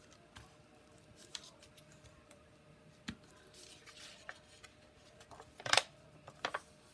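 Paper and craft tools handled on a desk: scattered soft clicks and rustles, with a few louder, sharper ones near the end.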